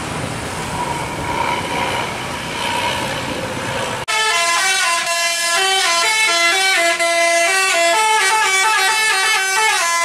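Traffic noise from passing vehicles, then, after a sudden cut about four seconds in, a tour bus's musical telolet air horn playing a tune of stepped, held notes that runs on loudly to the end.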